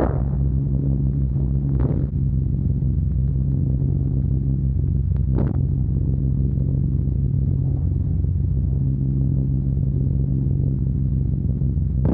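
The multi-engined drone of a Short Stirling heavy bomber's four radial engines heard in flight, steady and even, with about three short knocks over it in the first half.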